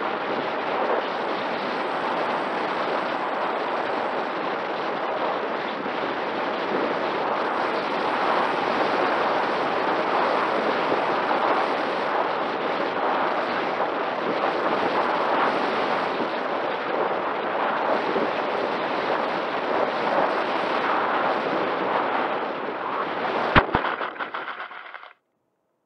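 Airflow and motor noise picked up by the onboard camera of a Mini Talon RC plane in flight: a loud, rough, crackling rush of wind with a faint steady whine from the brushless electric motor. Near the end there is one sharp knock as the plane lands in long grass, then the sound dies away and stops.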